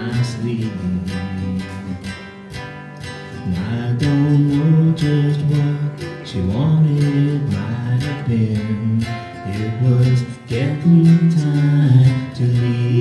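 Live acoustic guitar music: strummed and picked chords in an instrumental passage of a country-rock song, with no singing.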